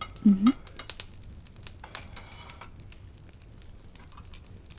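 A woman's short hummed "mm-hm" near the start, its pitch dipping then rising, followed by faint scattered clicks and a light crackle.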